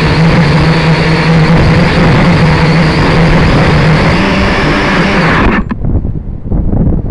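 Small drone's motors and propellers buzzing loudly with a steady hum, picked up by its own onboard camera microphone. The motor noise cuts off suddenly about five and a half seconds in, as the drone comes to rest upside down, leaving wind buffeting the microphone.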